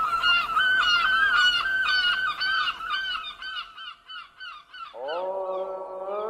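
A rapid series of honking bird calls, about three or four a second, fading away over the first few seconds. About five seconds in, voices enter on a chanted note that slides up and settles into a steady, held drone, the start of Byzantine chant.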